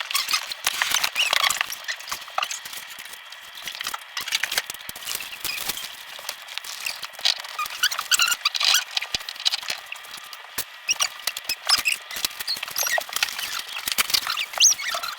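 Plastic and cardboard packaging crackling and rustling as it is handled and opened, a dense run of small clicks and crinkles.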